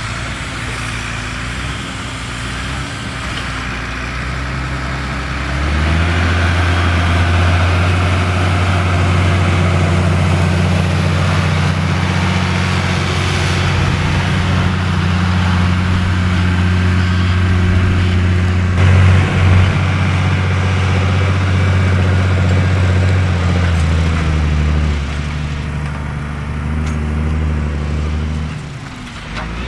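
Fendt Favorit 512 C's six-cylinder diesel engine working under load, pulling a four-furrow reversible plough with a front packer. It runs steadily, gets louder about six seconds in and eases off again a few seconds before the end.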